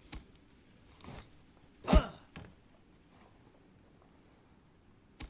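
Spear-throw sound effect: a short swish about a second in, then a loud thud with a brief pitched edge just before two seconds. A few small clicks come before and after it.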